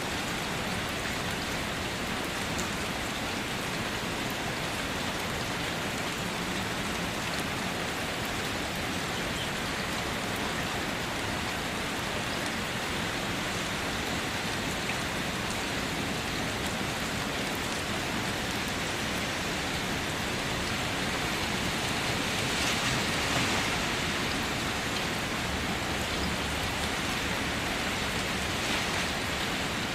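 Steady rain falling, an even hiss of rain on surfaces that swells a little about two-thirds of the way through.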